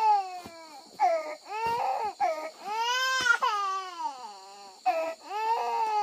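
Baby girl crying in a string of short wailing cries that rise and fall, with one longer wail about three seconds in. It is tired crying: she is sleepy.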